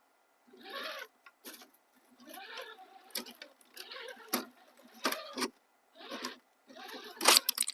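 RC crawler's electric motor and drivetrain whirring in about six short throttle blips, the pitch rising and falling within each, with sharp clicks and crackles mixed in.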